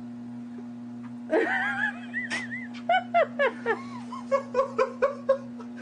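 Treadmill motor humming steadily, with a person laughing and giggling in short bursts from about a second and a half in.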